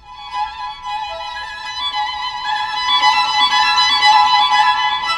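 Classical violin music played over Bluetooth through Bose 201 bookshelf speakers powered by a TPA3116 amplifier board. It starts suddenly and grows louder over the first few seconds.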